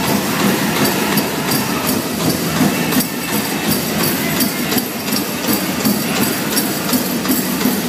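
Pow wow big drum struck in a steady beat for the grand entry song, with singing and the jingling of dancers' bells and regalia, all as one loud continuous din.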